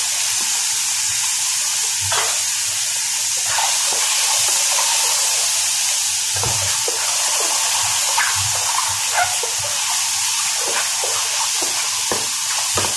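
Shiitake mushrooms sizzling in hot oil in a pan on high heat, a steady hiss, with scattered knocks and scrapes from a wooden spatula stirring them.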